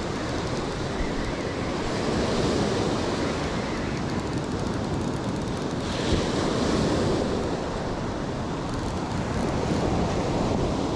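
Ocean surf breaking and washing up the beach, swelling and fading every few seconds, with wind buffeting the microphone.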